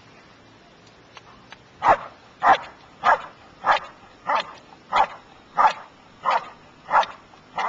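Working dog barking in a steady, even rhythm during protection work, about ten sharp barks at nearly two a second, starting about two seconds in.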